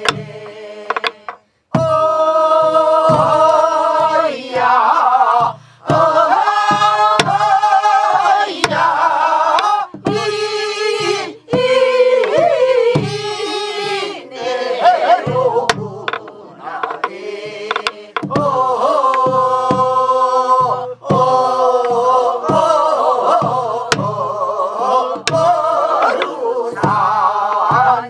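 A group of voices singing a Korean Namdo folk song together, with long held notes that slide and waver in pitch, accompanied by strokes on the buk barrel drum.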